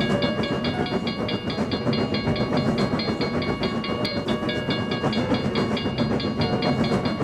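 Railroad crossing alarm bell ringing in a fast, even series of strikes over the rumble of a passing train.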